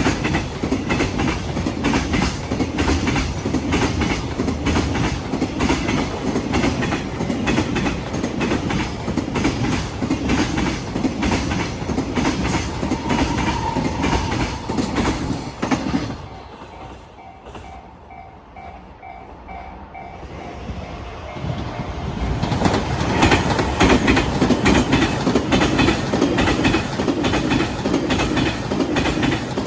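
Freight train wheels clattering over rail joints as the train runs past the level crossing, a fast steady rhythm of clicks. About 16 seconds in, the train noise falls away and a level-crossing alarm is heard dinging in a repeating pattern. About 22 seconds in, another train comes through with the same loud joint clatter.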